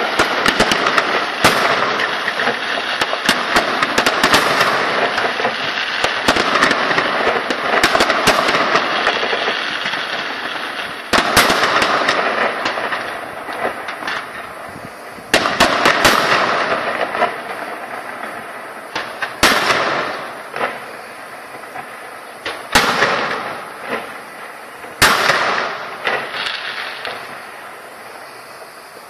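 Aerial fireworks display: shells bursting with bangs and dense crackling. The crackle is thickest for the first ten seconds or so; then come about five single sharp bangs a few seconds apart, each trailed by fading crackle.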